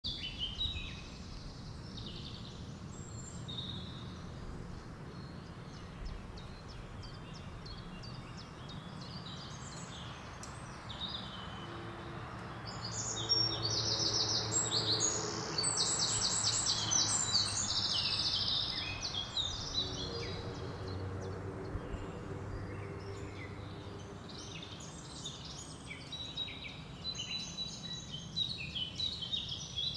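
Small birds chirping and trilling over a steady low background rumble. The calls are loudest in a run of fast repeated trills from about 13 to 19 seconds in.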